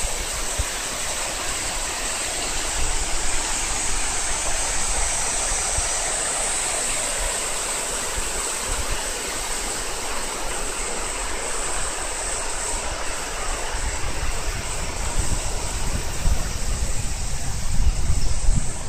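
Cicadas droning in a steady high-pitched chorus over an even rushing noise, with a low rumble building in the last few seconds.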